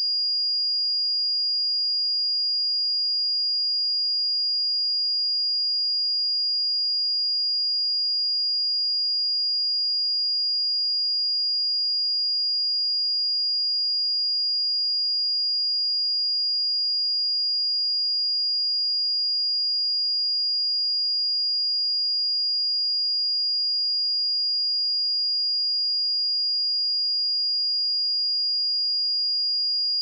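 A steady 4843 Hz sine-wave test tone: one pure high-pitched whistle-like note, unchanging in pitch and loudness.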